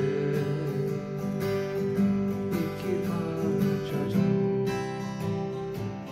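Acoustic guitar strummed steadily, its chords ringing on.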